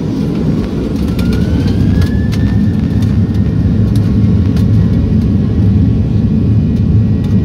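Boeing 737-800's CFM56-7B jet engines heard from inside the cabin, a steady low rumble as the airliner taxis onto the runway. The noise grows louder over the first second or so, and a faint rising whine comes in about a second in.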